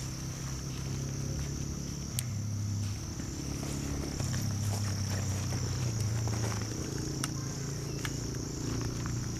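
Steady high-pitched chirring of insects, with a low hum underneath that shifts slightly in pitch and a few faint clicks.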